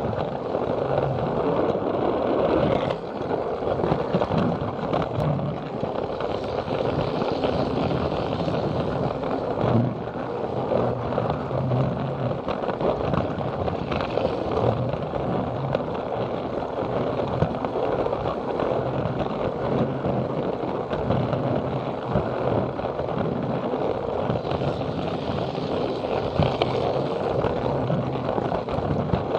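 Plarail toy train running steadily along plastic track: the battery motor's whir and the wheels rattling and scraping on the rails, heard up close from a camera riding on the train.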